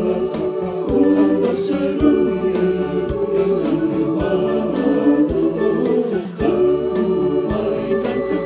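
Church choir singing a hymn in Indonesian in several parts over instrumental accompaniment, with a low beat about once a second.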